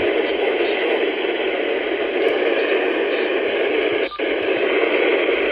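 Steady hiss of radio static from a radio receiver between broadcast warnings. There is a brief dropout about four seconds in.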